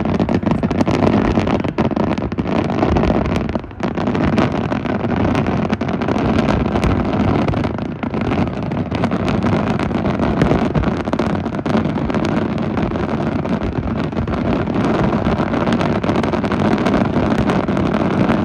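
Fireworks going off in a dense, unbroken barrage: many rapid bangs and crackles run together into a steady loud noise.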